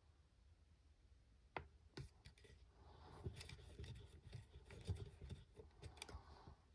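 Faint clicks and fingers rubbing on the plastic housing as the switch and rotary selector of a Streamlight Sidewinder Stalk helmet light are worked by hand, changing it from white to red light. A couple of single clicks come first, then a denser run of clicks and handling noise from about three to six seconds in.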